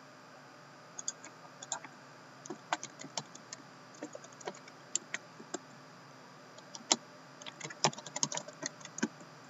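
Typing on a Lenovo laptop's keyboard: irregular keystroke clicks in short runs, with a pause of about a second in the middle and a quicker flurry near the end.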